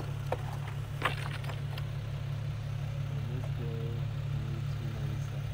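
A vehicle engine idling steadily, a low even hum, with a few light clicks in the first second or so.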